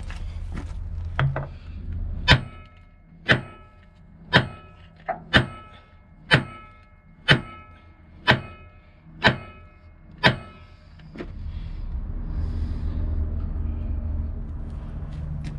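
Hammer striking steel about once a second, around ten ringing metallic blows, knocking at a rusted, seized steering joint on a SkyTrak 6036 telehandler to break it loose. A steady low rumble returns after the blows.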